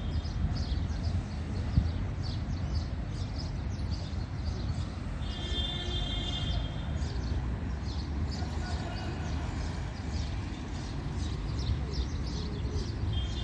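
Steady low outdoor rumble with many short high chirps and a drawn-out animal call about five to six seconds in, with shorter calls at the start and near the end.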